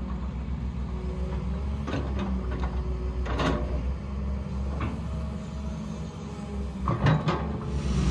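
Heavy construction machinery: a diesel engine running low and steady, with several metallic clanks and knocks, the loudest about three and a half seconds in and a quick pair about seven seconds in.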